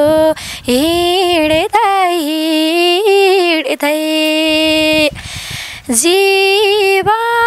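A woman singing a Nepali folk song unaccompanied, drawing out long, ornamented held notes, with a quick breath about two thirds of the way through.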